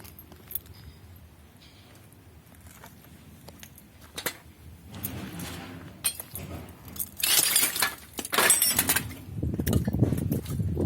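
Scrap metal pieces clinking and clattering as they are handled, with scattered light clicks at first and a louder run of bright metallic clinks past the middle, then a rustling, scraping noise near the end.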